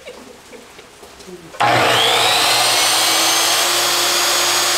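Sliding miter saw (chop saw) switched on about a second and a half in: the motor whines up to speed, then runs loud and steady as the blade is pulled down through a wooden board.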